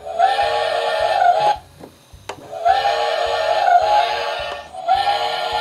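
Plastic model steam engine's pull-chain whistle blowing long steady blasts, twice in full and a third starting near the end. A faint low pulse repeats about three times a second underneath.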